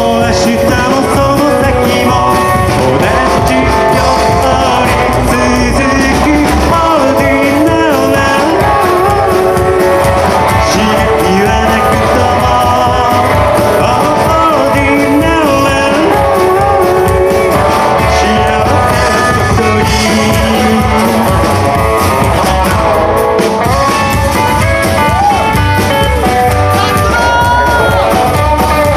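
Rockabilly band playing live rock and roll, loud and steady throughout, with guitar, drums and bending melodic lines over a driving beat.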